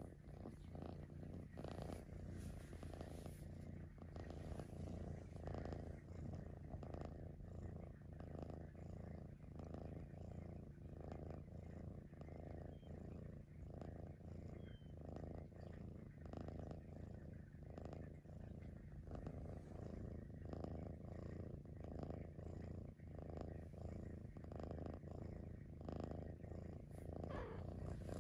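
Maine Coon cat purring steadily up close, the purr swelling and easing in a regular rhythm about once a second with its breaths.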